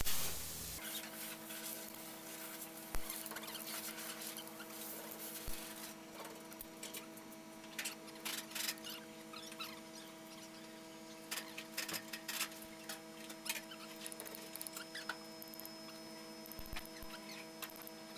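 Long-handled wrench tightening the cylinder head bolts on a Mercedes OM501 diesel engine: scattered metal clicks and small squeaks from the socket and bolts, most of them in the middle of the stretch. Under them a steady hum of several tones starts about a second in.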